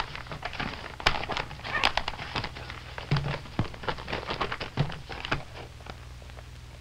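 Pages of a paper magazine rustling and crackling as they are handled and unfolded, a string of irregular crackles and light taps that stops about five and a half seconds in.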